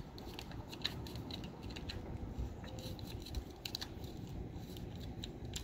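Scattered light clicks and rattles as fingers tighten the screw of a 3D-printed plastic GoPro mount clamped onto a chain-link fence, over steady low background noise.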